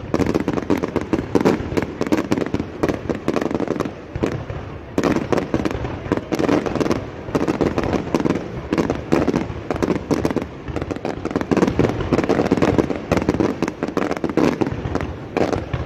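Fireworks display: a dense, unbroken run of bangs and crackles, many reports a second.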